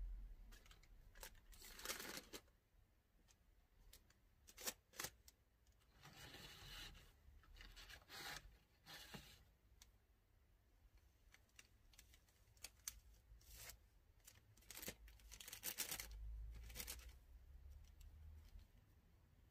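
Thin incense sticks rustling and clicking against each other as they are counted out by hand, in short dry swishes and light taps at irregular intervals.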